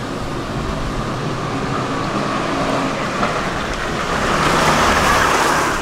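Street traffic, with a motor vehicle passing close by: its noise builds to a peak about four to five seconds in and eases off near the end.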